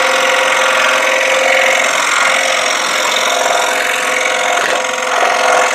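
Jet scroll saw running at a reduced speed, its number 5 blade cutting steadily through quarter-inch wood.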